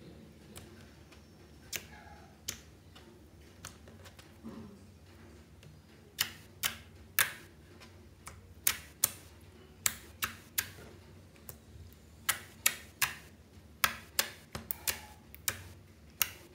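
Sticky clear slime with gold metallic pigment being kneaded and poked by fingers, giving sharp wet clicks and pops as it sticks and pulls free. A few at first, then many in quick succession from about six seconds in.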